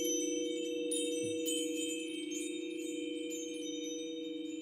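A hanging wind chime rung over crystal singing bowls: many bright, high chime tones start at different moments and ring on over each other, above two steady low tones from the bowls.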